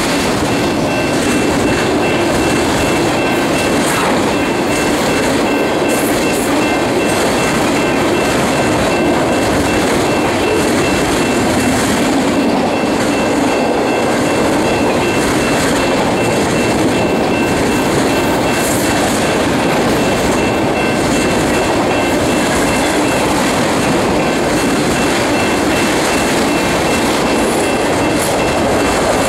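Freight train of enclosed autorack cars rolling past close by: a steady, loud rumble and rattle of steel wheels on the rails, with a faint thin high tone held throughout.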